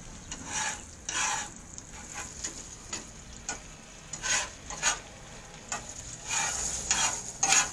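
Chopped onion frying in melted butter in a pan, with a steady high sizzle, while a utensil stirs and scrapes the pan in about ten short, irregular strokes.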